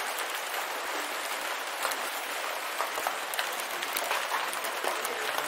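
Steady rain on a corrugated roof: an even hiss thick with small drop ticks, with no break or change.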